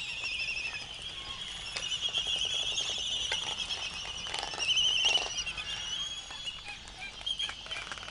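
Laysan albatross nesting colony: many birds calling at once in a steady high chatter, with scattered rapid clicking and a louder stretch of calls about five seconds in.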